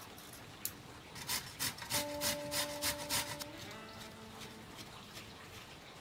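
Raw pumpkin being grated: a run of about seven quick strokes, roughly three a second, starting about a second in and stopping a little past three seconds.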